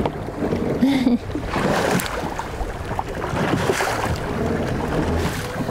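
Choppy waves slapping against an aluminum bass boat's hull as it rocks, with wind buffeting the microphone and a few short knocks from the chop.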